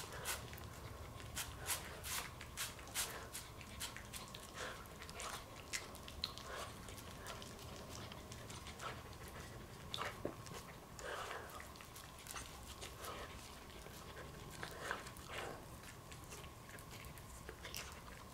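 Small dog eating food off the pages of an open paper comic book: quiet, irregular chewing with many small clicks and crunches.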